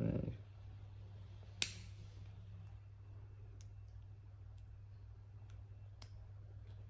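Dog nail clippers cutting through a Labradoodle's toenail: one sharp snip about one and a half seconds in, then a few fainter clicks as the clippers are repositioned, over a low steady hum.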